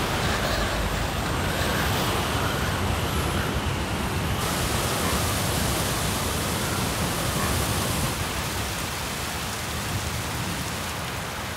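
Hurricane wind and driving rain: a steady, dense rush of noise with no distinct events. Its tone shifts slightly about four seconds in and again around eight seconds.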